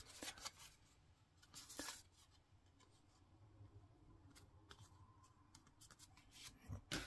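Near silence, with a few faint rustles and small taps from cardstock pieces being handled and fitted together.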